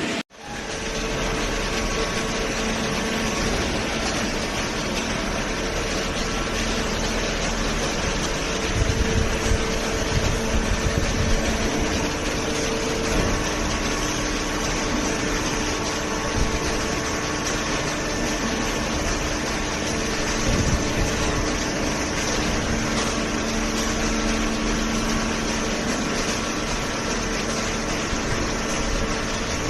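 Hydraulic cardboard baler running: its motor and hydraulic pump make a steady hum over machine noise, with a few low knocks about nine to eleven seconds in.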